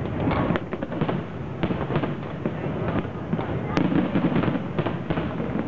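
Fireworks display: many bangs and crackles in quick, irregular succession, with no pause.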